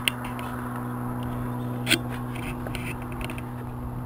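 A few sharp clicks and ticks as a flat road-bike tyre is worked off its rim by hand, the loudest a little under two seconds in, over a steady low hum.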